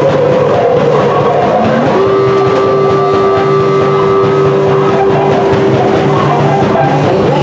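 Loud experimental space music played live. A pulsing low note sits under gliding pitches, and one steady tone is held from about two seconds in until near the end.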